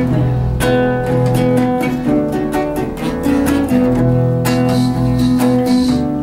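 Acoustic guitar strummed, a run of chords that ring on between the strokes.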